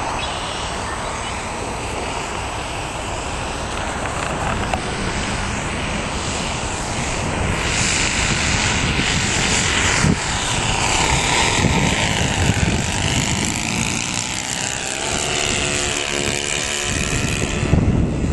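Twin engines of a Top Flite C-47 radio-control scale model in flight, running steadily. The engine note grows louder and sweeps and wavers in pitch as the plane makes a low pass and climbs away.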